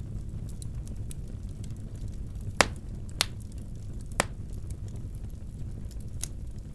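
Wood fire burning in a fireplace: a steady low rumble with faint crackles, and three sharp pops in quick succession a little after the middle.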